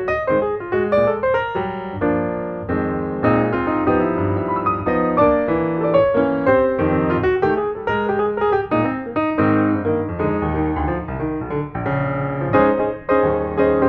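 Background piano music, a continuous run of notes and chords at a steady level.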